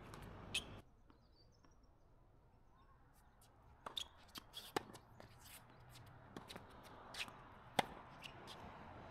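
Faint, sharp knocks of a tennis ball being struck by rackets and bouncing on a hard court, irregularly spaced through the second half, the loudest late on. The background hiss drops away abruptly just under a second in.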